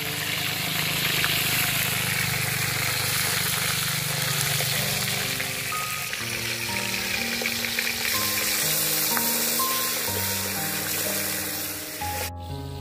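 Pork intestines sizzling as they fry in a wok, with background music playing over them. The sizzling cuts off suddenly near the end.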